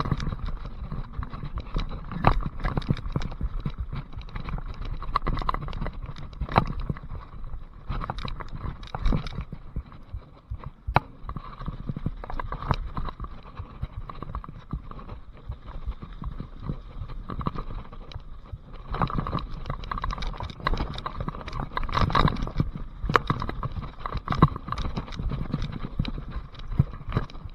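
Mountain bike ridden along a muddy trail: a dense clatter of knocks and rattles from the bike over rough ground, with a low rumble of tyres and wind underneath, louder in surges about twenty seconds in.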